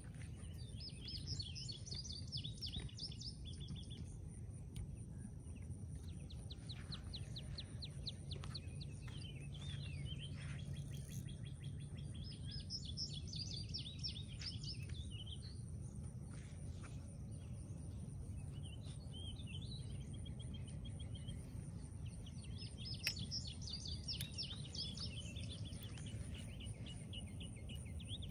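Songbirds singing in repeated short phrases, one with a fast trill, over a steady low background noise.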